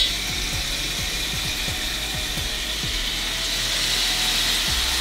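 Marinated chicken thighs sizzling on a very hot grill pan, the sizzle starting suddenly as the meat goes onto the pan and growing a little louder over the seconds.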